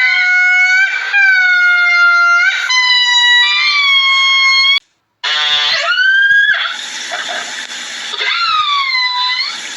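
An animal's long, high-pitched calls, several in a row, each held for a second or more. After a short break about halfway through, more calls follow that rise and then fall in pitch.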